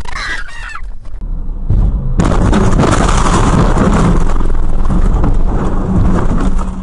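Vehicle crash picked up by a dashcam: a sudden loud impact about two seconds in, followed by about four seconds of continuous loud crashing noise that eases off near the end.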